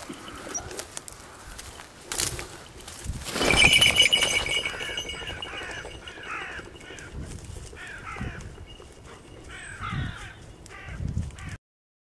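A loud burst of rustling and flapping about three and a half seconds in, with a brief ringing tone. Then a bird gives short, harsh calls over and over, each falling in pitch, until the sound cuts off abruptly near the end.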